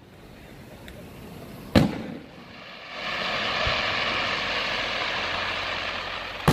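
Aerial firework shells going off: a sharp bang about two seconds in, then a steady hiss for about three seconds as a shell's stars fall and fizzle, and another bang at the very end.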